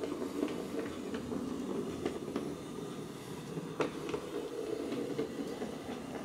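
Hattons OO gauge Andrew Barclay 0-4-0 saddle tank model locomotive running along the track: a steady motor hum with irregular clicks from the wheels on the rails, the sharpest click about four seconds in.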